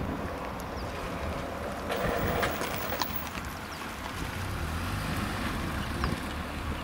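Wind rumbling on the microphone, with a few short clicks about two to three seconds in.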